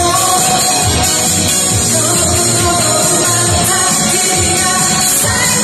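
K-pop boy group singing live into microphones over a loud pop backing track with a steady bass beat.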